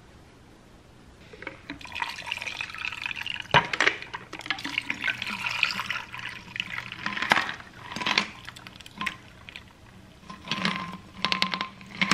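A red mixed drink poured over ice into two glass tumblers, starting about a second in: liquid pouring and splashing, with scattered clinks of ice against glass.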